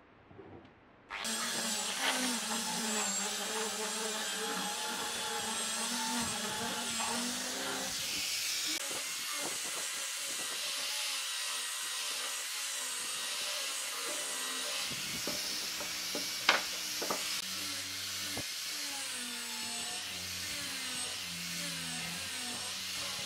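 Angle grinder fitted with a sanding disc switched on about a second in, then running continuously as it sands a curved laminated-wood chair frame, its motor pitch wavering as it works. One sharp knock stands out about two-thirds of the way through.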